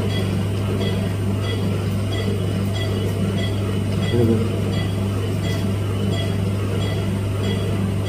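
Steady low electrical hum of operating-theatre equipment, with a faint regular ticking pulse about every two-thirds of a second and a brief louder sound about four seconds in.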